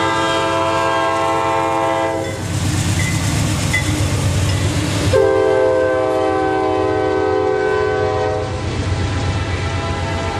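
Diesel freight locomotive's multi-chime air horn sounding two long blasts, the second starting about five seconds in, over the steady rumble of the passing train.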